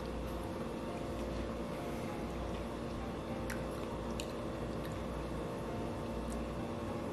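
Faint clicks and soft handling sounds as boiled artichoke leaves are pulled from a plate and dipped into a bowl of sauce, over a steady low hum.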